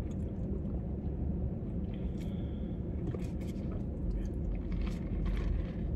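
A person chewing food, with faint scattered mouth clicks over a steady low hum.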